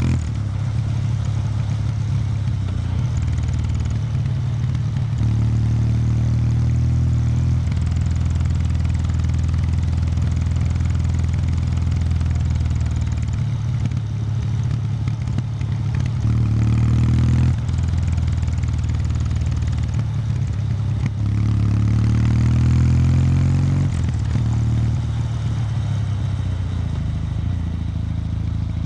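Kawasaki W800 Street's air-cooled parallel-twin engine, through its stock exhaust, running at low revs on the move. The engine note rises in a few short stretches as the throttle is opened, then drops back.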